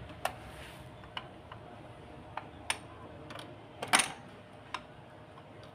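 Garrard automatic record changer ticking and clicking as it runs: a few irregular sharp clicks over a faint steady hiss, with one louder clack about four seconds in.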